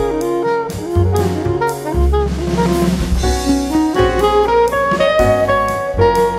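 Instrumental background music with a steady drum beat, a bass line and a melody of held notes.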